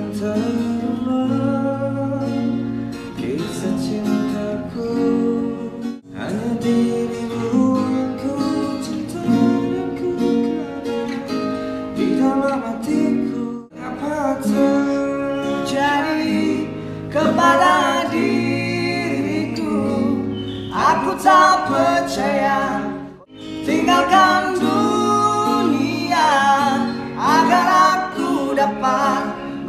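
A man singing unamplified, without a microphone, to an acoustic guitar played alongside. The performance breaks off briefly three times.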